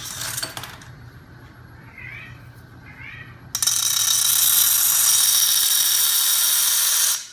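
Homemade magnet-driven flywheel machine, powered by a small 12 V electric motor, running with a low steady hum. A brief clatter at the start and two short squeaks are followed, about three and a half seconds in, by a loud, fast rattling from the mechanism that stops suddenly near the end.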